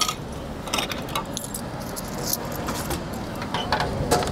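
A food vending machine dispensing a packet: a few sharp clicks and clinks, then a quick run of clicks and clatter near the end as the plastic pickup flap is pushed open.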